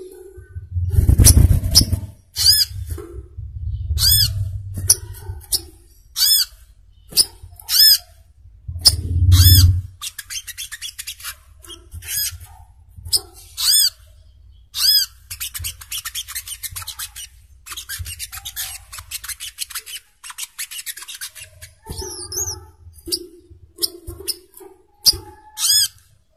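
Sogok ontong (kelapa bird) calling: sharp, high-pitched chirps repeated at irregular intervals, with stretches of rapid trilling in the middle. Low rumbling thumps come about a second in and again about nine seconds in.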